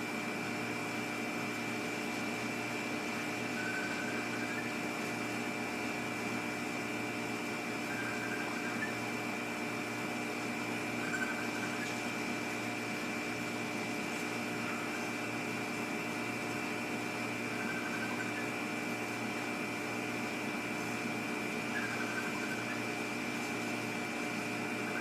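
A steady machine hum made of several constant tones, with faint short chirps every three to four seconds.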